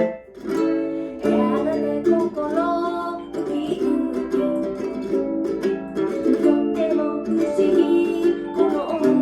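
Mini guitar strumming a rumba rhythm together with a mini keyboard, playing steadily.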